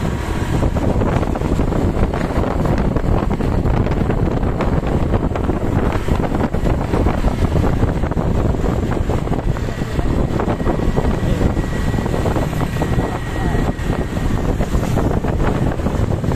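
Wind buffeting the microphone over steady vehicle and road noise.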